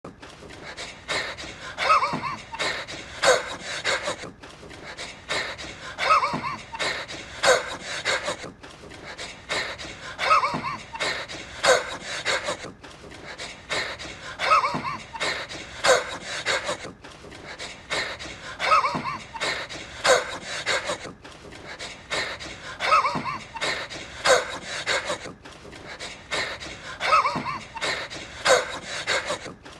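A man's wheezing, panting breaths: rasping in-and-out gasps with short squeaky, voiced catches. The same few-second stretch repeats about every four seconds.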